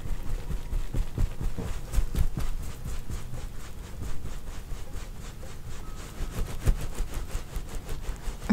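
Hands kneading and rubbing right at the microphone in a mimed close-up massage: irregular soft low thuds and rubbing, with a run of fine crackles throughout.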